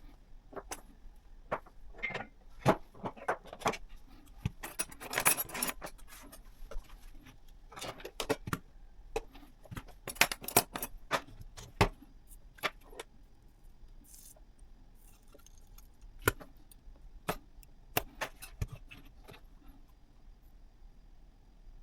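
Irregular clicks, taps and small rattles of hard parts being handled, with a dense patch of rattling about five seconds in and another around ten to twelve seconds, growing sparse after about fourteen seconds.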